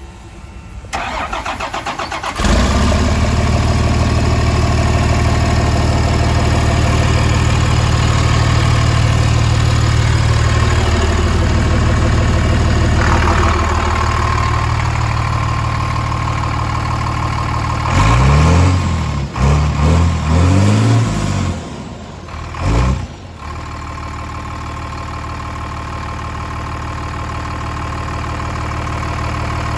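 Straight-piped Cummins ISC 8.3-litre inline-six diesel being cranked and starting, catching about two and a half seconds in and settling into a loud, steady idle. Around two-thirds of the way through it is revved in several quick blips, then drops back to a lower, steady idle.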